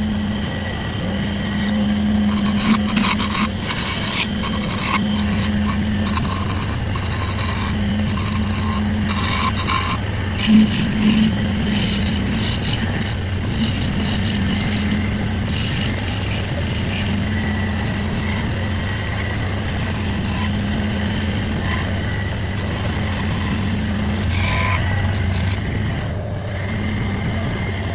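An electric power tool's motor running steadily with a constant low hum while wood is cut and scraped, the scraping coming and going in irregular strokes, with a couple of louder bites about ten seconds in.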